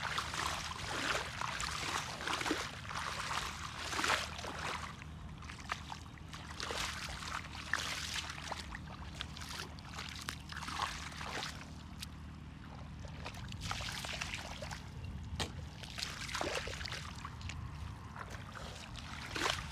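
Bare feet sloshing and stirring through shallow muddy water, with irregular splashes every second or two, fewer for a few seconds past the middle.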